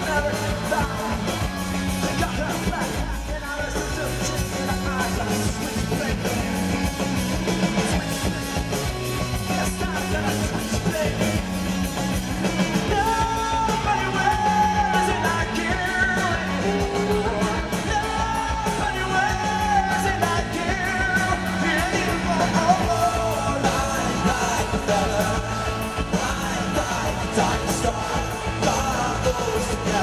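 Rock band playing live: a male singer sings over drums and the rest of the band, heard from the crowd through a compact camera's microphone.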